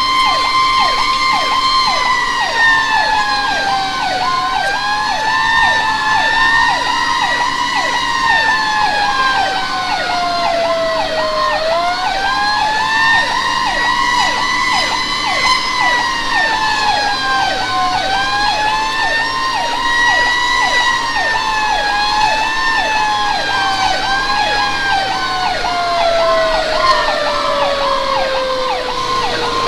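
Fire engine sirens sounding on the way to a call: a wailing tone that slowly rises and falls in pitch and winds down near the end, over a fast-repeating yelp, with the truck's engine running beneath.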